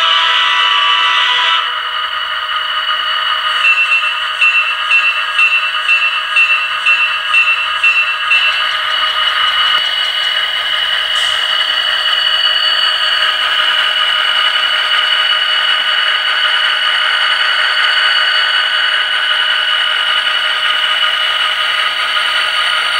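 ESU sound decoder in an HO-scale GP30 model locomotive playing diesel locomotive sounds through its small speaker. A horn sounds for about a second and a half at the start and cuts off, then the bell rings about twice a second for some five seconds, over the steady drone of the prime mover.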